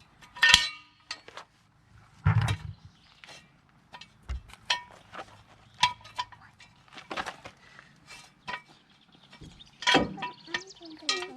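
Scattered metal clinks and clanks as tools and parts are handled and set down, a few of them ringing briefly, with louder knocks about half a second, two and a half seconds and ten seconds in.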